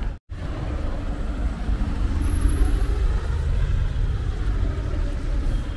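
Road traffic noise: a dense, uneven low rumble of passing vehicles. The sound drops out for a split second just after the start.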